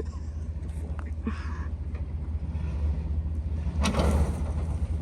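A vehicle's low, steady engine and road rumble while driving slowly, with a brief hissing noise about a second in and a short, louder rushing sound about four seconds in.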